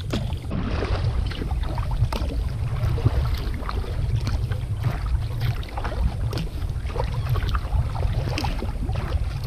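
Wind rumbling on the microphone of a sea kayak under way, with frequent small splashes, drips and slaps of water around the hull and paddle.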